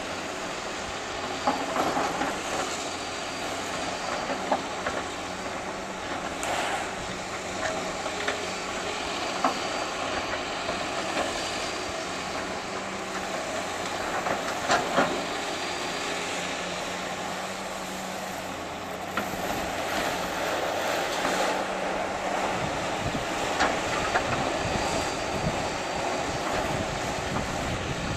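Heavy demolition machinery running steadily, with repeated clanks and knocks as broken concrete slab is handled and removed.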